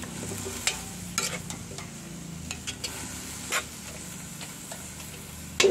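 Cabbage, corned beef and egg stir-frying in a large metal wok, sizzling steadily. A metal spatula scrapes and clicks irregularly against the pan as it turns the food.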